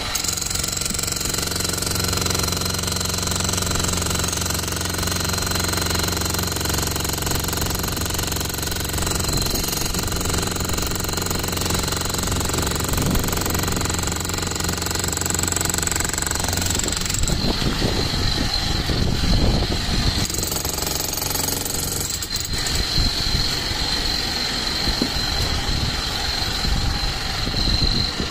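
Bosch GSH 11 E corded electric demolition hammer running continuously, its chisel breaking up concrete slabs. The even machine hammering turns rougher and more ragged about two-thirds of the way through as the chisel works into the rubble.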